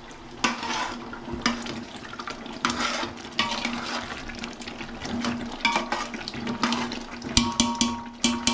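Steel ladle stirring a watery chicken gravy in a large metal pot: repeated wet sloshing and scraping strokes over a steady low hum, with sharper clinks of the ladle ringing against the pot near the end.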